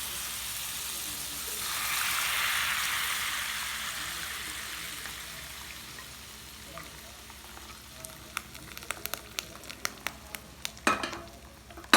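Jaggery water being poured through a strainer into a metal vessel: a hissing pour that swells about two seconds in and slowly fades. It is followed by a run of light metallic clicks and taps of the strainer and vessels, the loudest knock near the end.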